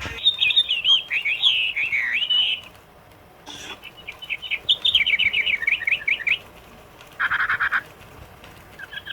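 Pet parrot chirping in two quick runs of high, rapid chirps, then one short harsh squawk about seven seconds in.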